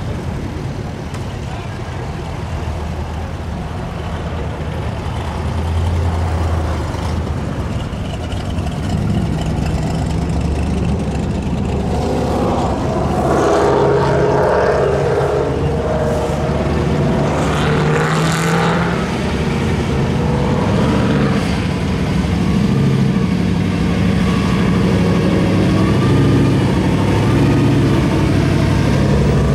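Engines of a slow line of cars and pickups passing close by, among them classic muscle cars and hot rods with loud modified engines running deep and low. The engine noise gets louder about a dozen seconds in.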